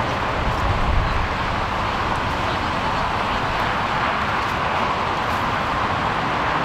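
Steady traffic noise from the highway, an even wash of tyre and engine sound with no single event standing out.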